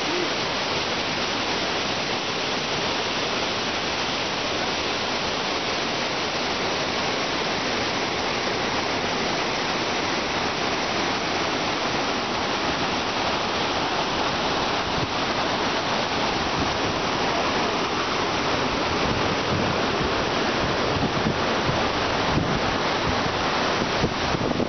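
Waterfall: falling water making a steady, dense rushing noise, with a low rumble growing stronger near the end.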